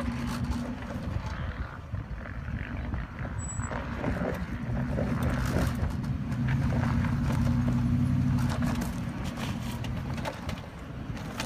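2006 Nissan Armada's 5.6-litre V8 running at low revs as the SUV crawls down a rocky dirt track, a little louder past the middle as it nears. Stones click and crunch under the tyres.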